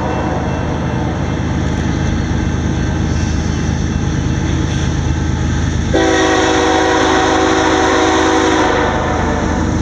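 Freight locomotive's air horn sounding one long blast starting about six seconds in and lasting about three seconds, over a steady low rumble; the tail of an earlier blast fades out at the very start.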